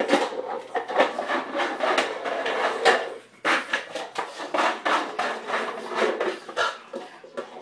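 A boxer puppy batting and shoving a cereal bowl across a hard kitchen floor: rapid knocks, clatters and scrapes of the bowl, with a short pause about three seconds in.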